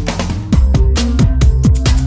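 Electronic music with a steady drum beat and heavy bass notes that slide down in pitch.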